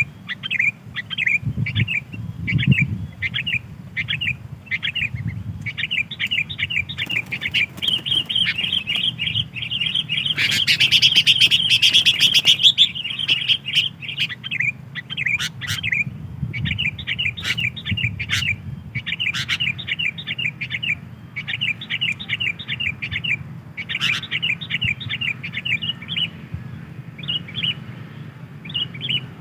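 Sooty-headed bulbul (kutilang) calling: a steady run of short, quick chirps, with a louder, denser burst of chatter near the middle.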